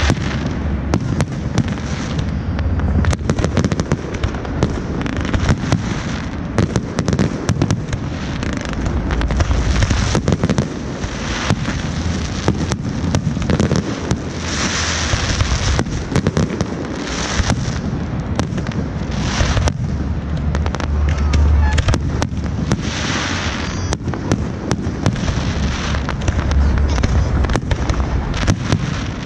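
Fireworks going off in a rapid, continuous run of sharp bangs and crackling, with deep booms underneath.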